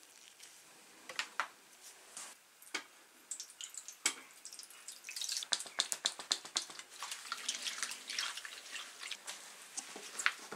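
A few sharp taps and clicks, then liquid poured from a plastic bottle into a stainless steel tray of water, trickling and dripping with a dense crackle from about five seconds in.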